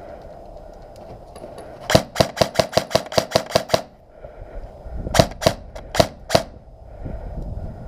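Airsoft gun firing: a rapid string of about ten shots, then after a short pause four or five more.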